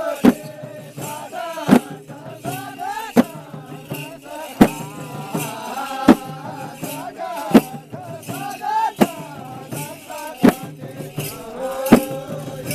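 Kauda folk-dance music: voices singing a wavering melody over a loud, regular stroke of small brass hand cymbals (jhyamta), about one stroke every second and a half.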